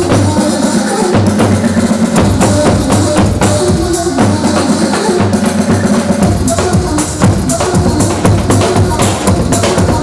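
Loud Kurdish wedding dance music with a steady driving percussion beat; the deep bass drops out twice for a couple of seconds.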